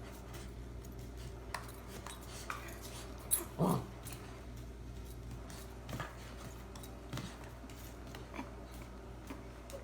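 A dog making one short sound that falls in pitch, about three and a half seconds in, among a few faint scattered clicks and knocks.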